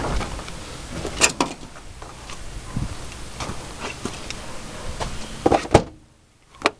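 Rubber floor mats being handled and set back into a truck's footwell: scattered knocks and thumps, one loud knock about a second in and a cluster of louder knocks near the end.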